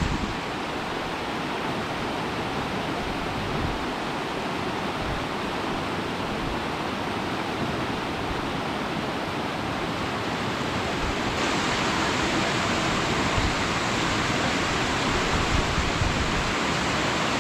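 Mountain river rushing beneath snow and rocks: a steady, even roar of water that grows a little louder about eleven seconds in.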